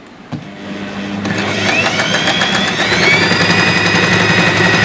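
Usha Janome Excella electric sewing machine starting to stitch: after a click, the motor speeds up with a rising whine over a couple of seconds, then runs steadily with the needle's fast, even clatter.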